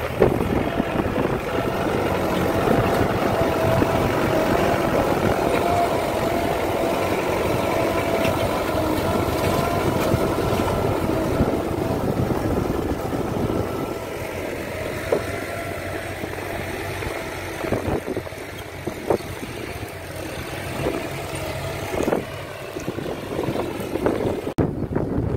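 Mahindra 475 DI tractor's diesel engine running steadily under load while it pulls a tine cultivator through field soil. It is loudest in the first half, then quieter from about halfway, with scattered clicks and knocks.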